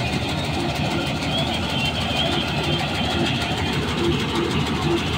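Rice combine harvester running at work, its engine and threshing machinery making a steady mechanical din.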